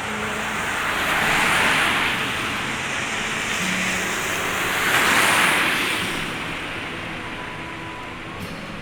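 Heavy rain hissing steadily, with two louder whooshing swells about a second in and about five seconds in, like cars passing on a wet road.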